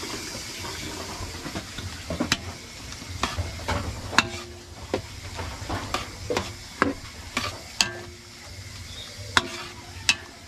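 A metal ladle scraping and knocking against a steel wok while stirring vegetables in a simmering sauce, with irregular sharp clinks about once or twice a second over a low, steady sizzle.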